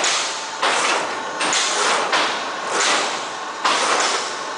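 Automatic die-cutting machine for corrugated board running through its cycle: a rhythmic hissing clatter that surges about every three-quarters of a second.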